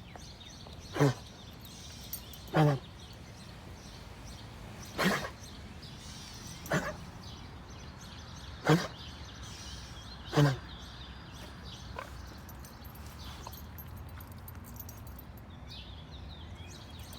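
An animal coughing: six short, harsh coughs spaced one and a half to two and a half seconds apart over about ten seconds.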